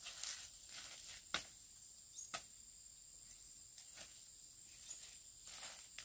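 Insects calling steadily at a high pitch, with a few sharp clicks over the top, the clearest about a second and a half in and again just after two seconds.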